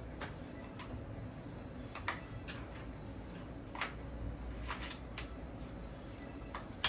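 Scattered small clicks and taps, about eight over several seconds, from makeup products and tools being handled and set down, over a low steady room hum.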